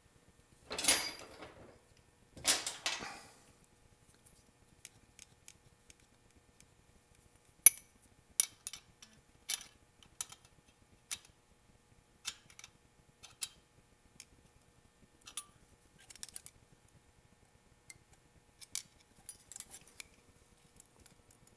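Hand tools working the valve adjuster on a 1985 Honda XR600's rocker arm, during valve lash adjustment. There are two brief scraping rustles in the first few seconds, then scattered light metallic clicks and taps, roughly one a second, as the wrench and feeler gauge touch the lock nut and adjusting screw.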